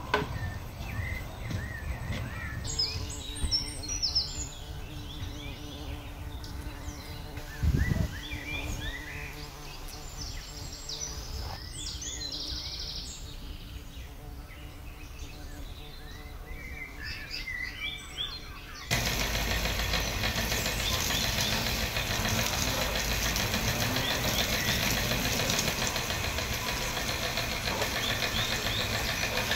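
Outdoor garden ambience: birds chirping over a low steady hum, with one short low thump about eight seconds in. About two-thirds of the way through, the sound cuts abruptly to a louder, dense steady hiss.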